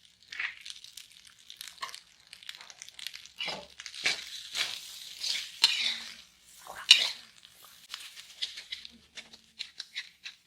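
Rice stir-frying in a pan, sizzling and crackling irregularly as black sauce is stirred in, with a few sharp scrapes or knocks of the spatula against the pan.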